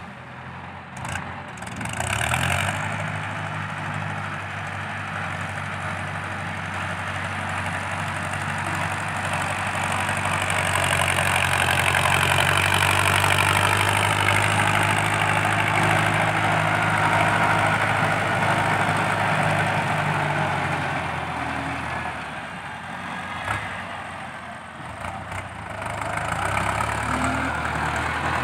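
Ford 6640 tractor's diesel engine running under load as its front blade pushes soil, growing louder as it comes nearer, easing off about three quarters of the way through and picking up again near the end. A few brief knocks near the start.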